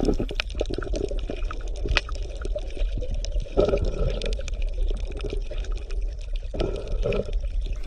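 Wet handling noise from fish being shifted on crushed ice with tongs, over pouring or running water, with many small clicks and clatters. Two brief, duller stretches come about three and a half and six and a half seconds in.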